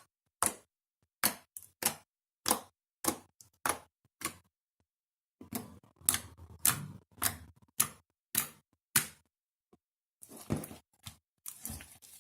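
Clear slime with fruit beads being poked and squeezed: a string of sharp pops about every half second, pausing briefly, then a denser crackling squish near the end.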